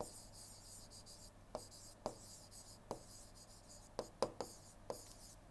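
Faint stylus writing on a tablet screen: a series of soft, irregular taps and light scratches as a pen tip strokes out handwriting.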